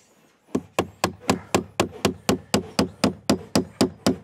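Hammer driving a nail with quick, even blows, about four a second, starting about half a second in.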